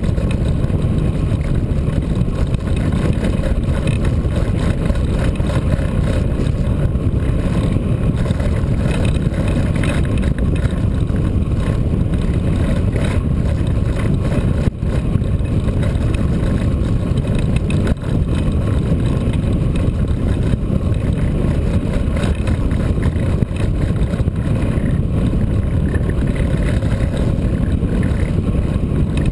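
Wind rushing over the microphone of a camera mounted on a hang glider in flight: a loud, steady, low roar.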